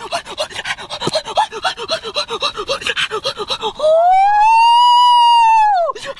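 A man's rapid voiced panting, then a long drawn-out 'ooh' that rises and falls in pitch over about two seconds.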